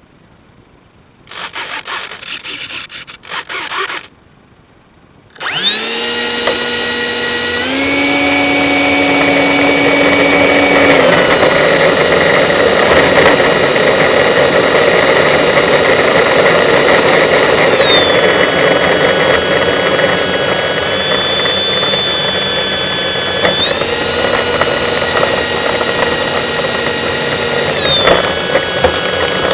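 Electric ducted fan of a radio-controlled Rafale jet (a 64 mm Mercury EDF on a 4S battery) spooling up sharply about five seconds in. It settles into a loud, high-pitched whine whose pitch steps up and down several times with throttle changes. A brief scratchy noise comes first.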